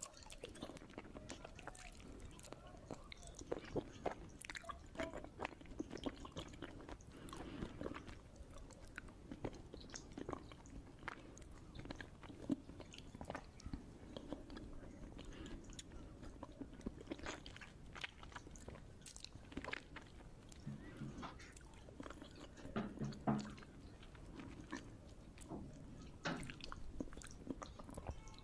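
Chewing and wet mouth sounds of a person eating khichdi by hand, with many small scattered clicks and smacks. Fingers mix the soft rice and lentils on a steel plate between mouthfuls.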